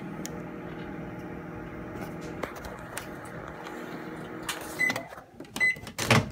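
Microwave oven running with a steady hum that stops about five seconds in, followed by two short high beeps signalling the end of the heating cycle. Near the end comes a loud clunk as the door is popped open.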